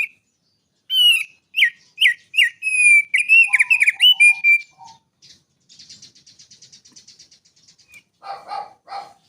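A small songbird singing: a run of loud, clear whistled notes that slur downward, then a faint, rapid high trill, and a few harsher calls near the end.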